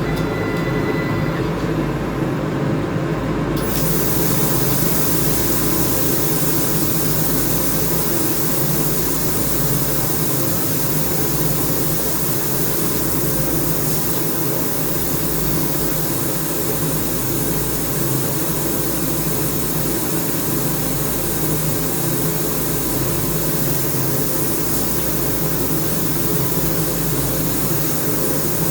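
PrimeWeld welding machine running with a steady hum; about three and a half seconds in, a steady hiss starts suddenly at the torch and keeps going while the torch misfires.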